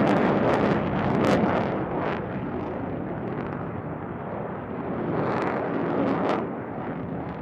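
Lockheed Martin F-22 Raptor's twin Pratt & Whitney F119 turbofans heard from the ground as the fighter manoeuvres overhead: a loud, rushing jet noise full of crackle. It swells about a second in, eases, and swells again around five to six seconds in.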